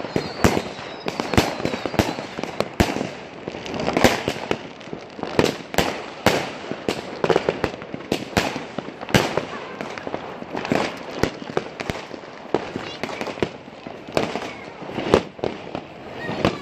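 Fireworks and firecrackers going off all around: a dense, irregular string of sharp bangs and pops, a few much louder than the rest.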